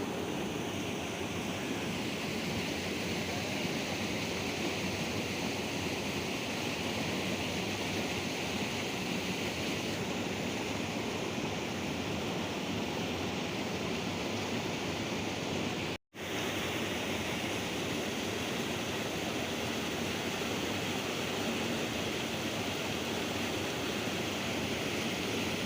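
Steady rush of flowing river water, an even hiss with no distinct events, that cuts out for an instant about sixteen seconds in.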